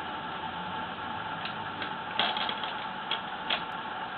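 A few short metallic clicks and ticks as the small jam nut on the press's side adjusting screw is turned down by hand to lock the screw, with the screwdriver held in the screw head. The clicks fall irregularly over a steady background hiss.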